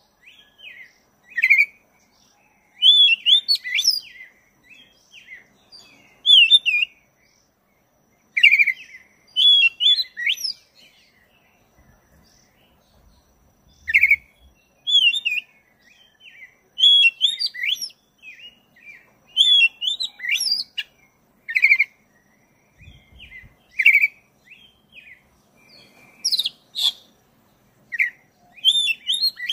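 Black-breasted oriental magpie-robin (kacer) singing: rapid, varied phrases of chirps, trills and whistles, coming in bursts with short pauses between them.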